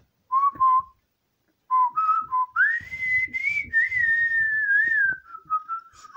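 A person whistling: a few short notes, then a long note that slides up high and wavers slowly back down.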